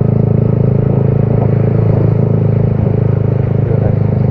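Motorcycle engine running steadily at low, even speed, ridden slowly over a wet road.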